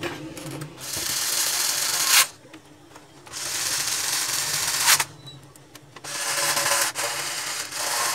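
Power screwdriver running in four short bursts, each stopping abruptly, as screws are driven during reassembly of a laser printer.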